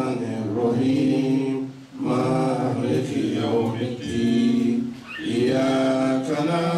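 Male voice chanting a slow, melodic Islamic devotional chant in long held phrases, with short breaks for breath about two and five seconds in.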